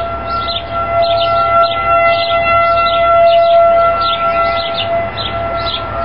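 Outdoor civil defense warning siren sounding a steady two-tone wail. It swells in level through the middle and eases off again.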